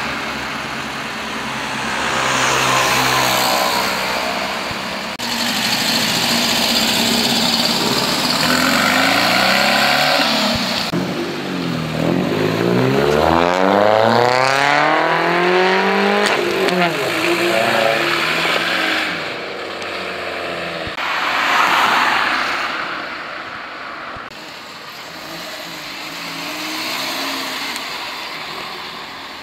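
Car engines running and accelerating as cars drive off one after another; near the middle one engine revs up and down several times in quick succession.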